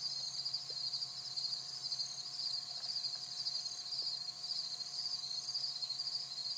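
Crickets chirping steadily: a continuous, high-pitched, rapidly pulsing trill.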